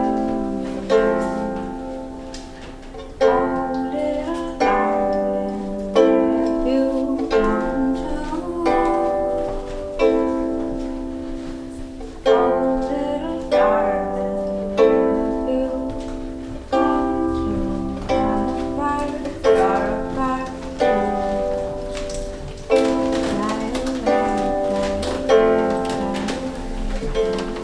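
Instrumental music: chords on a plucked string instrument, struck about once every second and a bit, each ringing and fading before the next.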